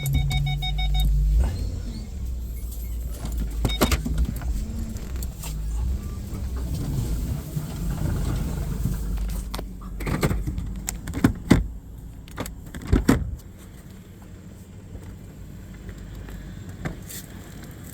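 A vehicle's engine running while it is manoeuvred over rough ground, with knocks and rattles and several sharp clunks near the middle, going quieter a few seconds before the end. A steady electronic beep sounds over the engine for about the first second.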